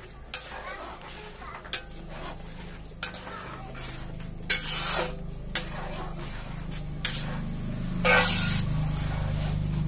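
A slotted metal spatula stirring a thick cream sauce in a wok, clinking sharply against the pan every second or so, with a longer scrape about eight seconds in. A steady low hum runs underneath.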